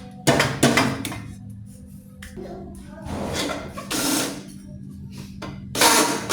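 A small electric machine running in short, irregular bursts over a steady low hum.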